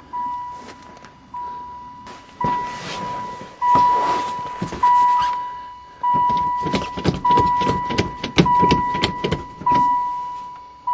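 A van's warning chime ringing once a second or so, a steady tone that restarts and fades with each ring, with scattered clicks and rustling around it.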